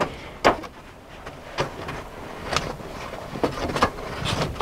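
A baking tray sliding and scraping onto the shelves of a wooden rack, with several sharp knocks as it meets the wood.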